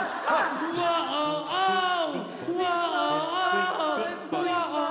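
Small group singing a cappella into handheld microphones, several voices together, with a man's voice pushing up to high notes.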